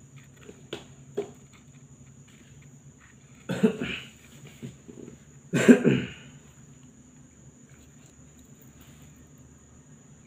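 A person coughs twice, about two seconds apart, the second cough the louder, over a faint steady high-pitched whine.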